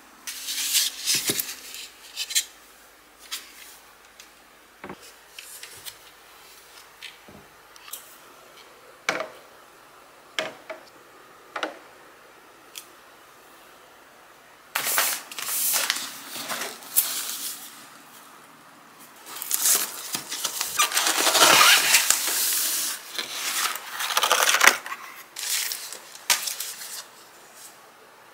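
Light clicks and knocks of items being handled on shelves, then loud rustling and crinkling of paper and plastic packaging as a parcel is unwrapped, strongest about two-thirds of the way through.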